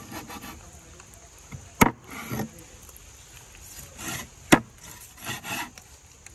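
Large curved knife sawing through a tuna on a wooden board in short scraping strokes, with two sharp knocks of the blade on the board, about two seconds in and again about four and a half seconds in.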